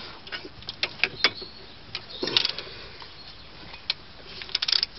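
Scattered metallic clicks and clinks of hand tools on a car's front brake assembly, with a quick run of ratchet clicks near the end.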